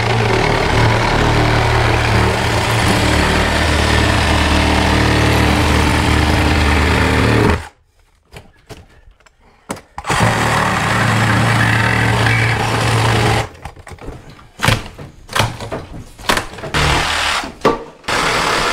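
A handheld power tool, used for demolition, running hard in one long burst of about seven and a half seconds. It stops, runs again for a few seconds, then gives short stop-start bursts mixed with knocks near the end.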